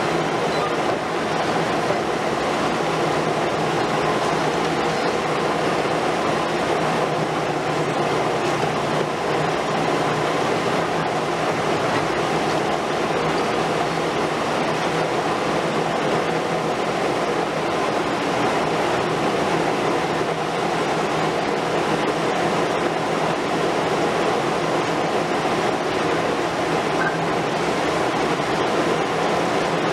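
Heavy demolition excavator working: the steady drone of a Liebherr R 950 Demolition long-front's diesel engine and hydraulics under a constant even noise, with no single impacts standing out.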